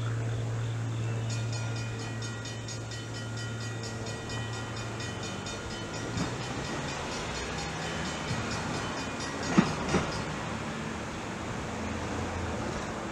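Diesel locomotive horn sounding one long, steady blast of several seconds in the distance, over a steady low drone. Two sharp thumps come just after the horn stops.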